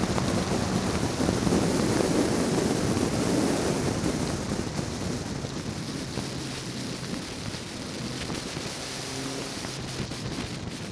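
Wind buffeting the microphone in the open cockpit of a Westfield sports car at track speed, over the steady note of its Ford Zetec four-cylinder engine. The noise is loudest for the first four or five seconds, then drops back and stays lower.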